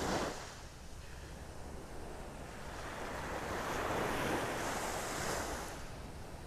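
Small waves washing onto the beach, swelling and easing as each one breaks, with a light rush of wind across the microphone.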